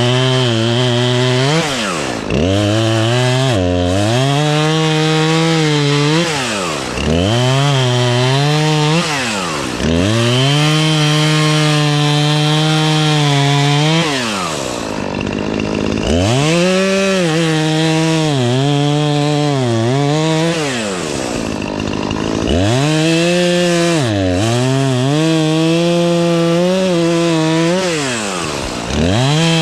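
Two-stroke chainsaw cutting tree limbs, opened up to full throttle in repeated bursts of a few seconds each and dropping back toward idle between them, about seven times; the pitch wavers as the chain bites into the wood.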